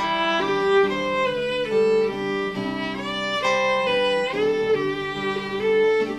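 Instrumental worship music: a sustained melody with a few sliding notes over held chords, with no singing.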